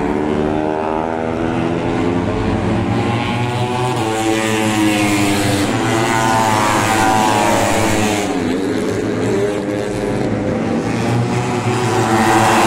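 Moto3 racing motorcycles passing one after another on the circuit, their engine note rising and then falling in pitch with each pass, with the loudest pass near the end.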